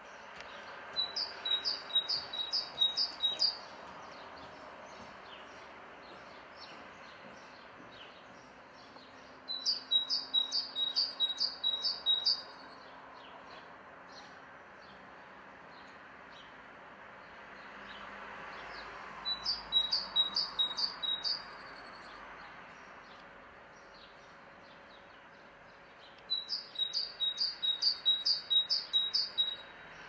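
A songbird sings four short phrases, about eight seconds apart. Each phrase is a quick run of six or seven evenly spaced high notes lasting about two and a half seconds. Faint chirps and a low background hiss fill the gaps.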